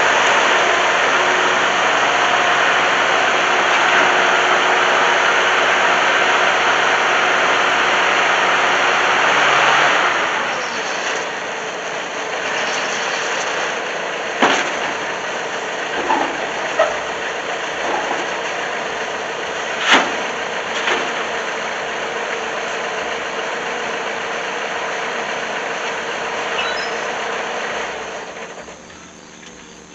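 Bobcat 873 skid steer's diesel engine running hard, dropping to a lower steady run about ten seconds in, with a few sharp clanks. The sound falls away near the end.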